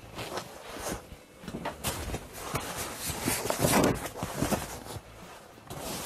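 Large leather sofa cushions being handled and set back onto a sofa bed: irregular thumps, rubs and rustles of leather and upholstery, loudest about halfway through.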